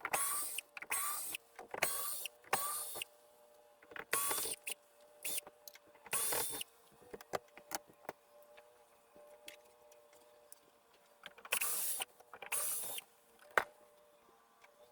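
A cordless screwdriver's motor whirring in short bursts, each spinning up quickly, with a quieter gap midway and a sharp click near the end: screws being undone to take off the motorhome's window latches.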